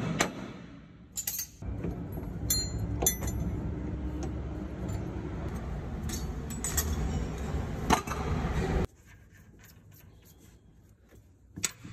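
Metal tools and truck driveline parts clinking and clanking as they are handled, several sharp clinks over a steady low rumble. About nine seconds in the rumble cuts off suddenly, and a single faint clink follows near the end.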